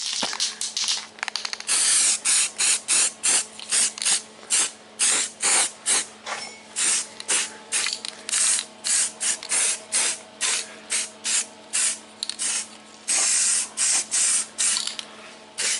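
Aerosol can of primer spraying in many short bursts, about two a second, with a few longer sprays near the start and near the end, as primer goes onto a freshly welded and ground steel repair patch to keep it from rusting.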